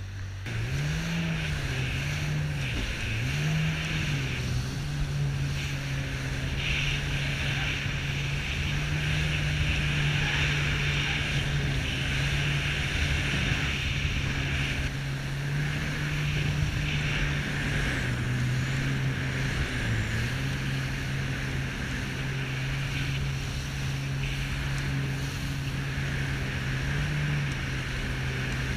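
Jet ski engine running under way, its revs rising and falling three times in the first few seconds, then holding steady, with a brief drop about two-thirds of the way through. Water and wind rush past the craft throughout.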